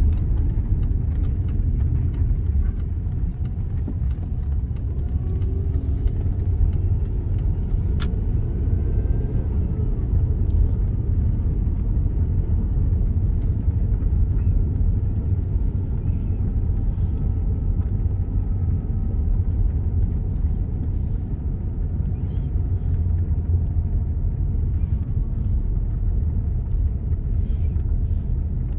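A car driving, with a steady low rumble of engine and road noise that holds at an even level throughout.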